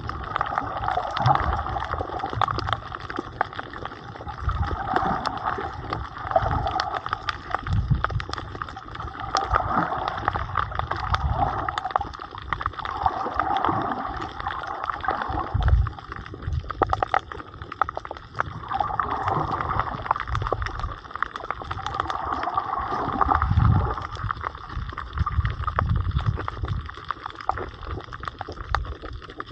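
Muffled water sloshing and gurgling around a camera held underwater, swelling and fading every few seconds, with low thuds of moving water.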